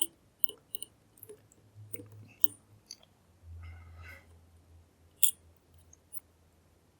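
Scattered light clicks and taps of lock-picking tools being handled, with a short rustle about three and a half seconds in and a sharper click a little past five seconds.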